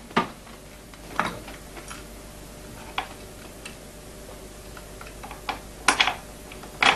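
Scattered sharp clicks and knocks of a restraint strap and its hook being handled and fastened at a chair against a wooden desk, about half a dozen in all, the loudest near the start and just before the end.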